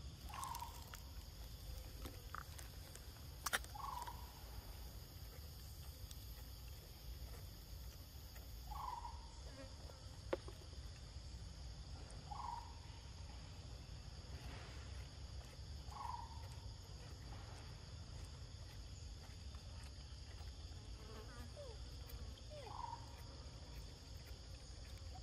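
Steady high drone of forest insects, with a short call repeating about every three to four seconds and a couple of sharp clicks.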